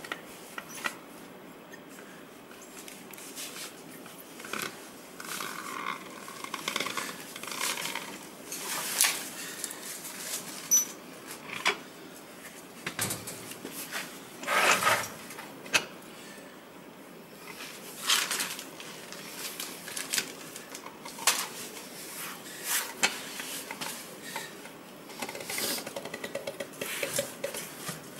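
Rubber air-spring sleeve being worked down over a Range Rover front air strut by hand: rubbing and scraping with many sharp clicks, the loudest scrape about halfway through.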